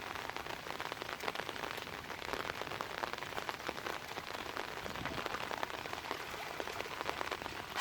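Rain falling steadily: a dense, even patter of many small drop ticks.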